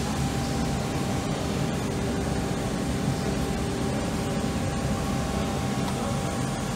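Steady machinery hum and noise, with a faint high steady tone through it and a second, higher tone joining near the end. No drilling is heard.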